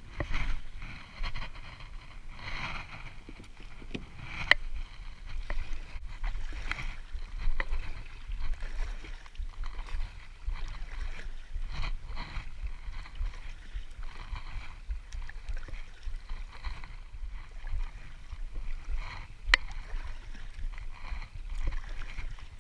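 Kayak being paddled through calm water: soft swishing and splashing of the paddle strokes about once a second over a low rumble, with two sharp clicks.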